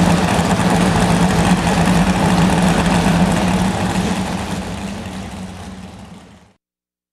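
Pro stock pulling truck's engine idling steadily with a low drone. It fades out over the last few seconds into silence.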